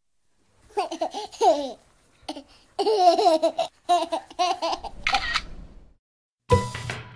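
A toddler laughing and babbling, a run of short high-pitched laughs over about five seconds. Music starts near the end.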